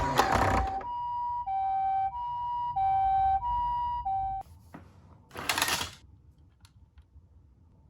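Japanese ambulance two-tone siren (pee-poh), an electronic high–low pair of notes alternating about every two-thirds of a second, which cuts off abruptly about four and a half seconds in. A brief burst of noise follows about a second later.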